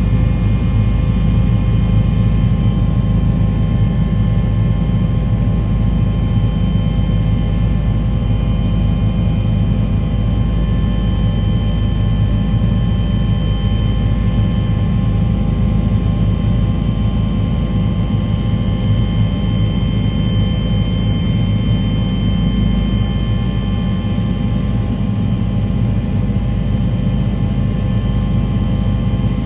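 A steady engine drone: a low rumble with several constant whining tones above it, unchanging throughout.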